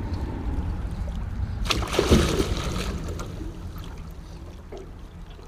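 Water splashing around a landing net holding a musky alongside a boat, with one louder splash about two seconds in, over a steady low rumble.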